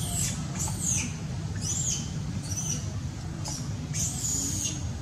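A young long-tailed macaque giving a series of about six short, high-pitched squeaks, some arching up and down in pitch, the last one longer, over a steady low rumble.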